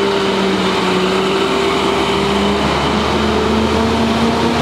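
Steady drone of a motor running close by, a constant hum that rises slightly in pitch about three seconds in, over a noisy rush.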